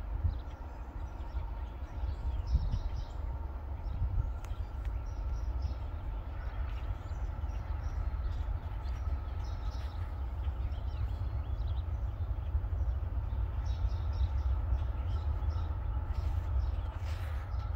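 Wind rumbling on the microphone with birds chirping, while a freight train approaches faintly in the distance.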